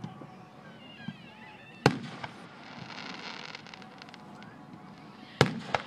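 Aerial firework shells bursting in sharp bangs: a loud one about two seconds in, then two more close together near the end, with fainter pops in between.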